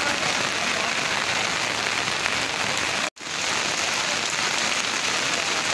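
Steady rain falling on a wet street, an even hiss. It breaks off for a moment about halfway through, then resumes.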